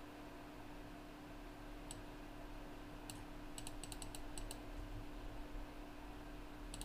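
Computer keyboard keystrokes: a single tap about two seconds in, another a second later, then a quick run of about eight keys, and a few more near the end, over a steady low hum.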